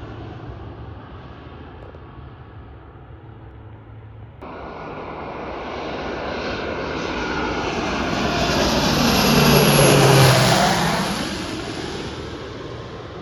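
A fixed-wing airplane flying past close by. Its engine sound swells for several seconds, is loudest about ten seconds in, then fades away with a falling pitch. Before it, a steady engine hum fades and stops abruptly at a cut about four seconds in.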